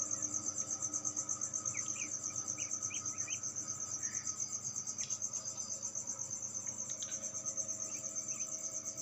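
A cricket chirping steadily, a high pulsing trill at about six pulses a second, over a faint steady hum. About two seconds in, a few faint short peeps come from the hatchlings.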